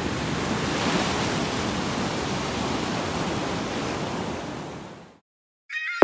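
Ocean surf breaking and washing up the beach, a steady wash of water noise that fades out about five seconds in. After a brief silence, electronic music starts right at the end.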